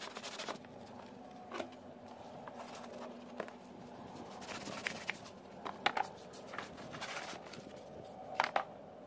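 Sandpaper rubbing the edge of a fibreglass panel in quick strokes that stop about half a second in, followed by a few light taps and short scrapes.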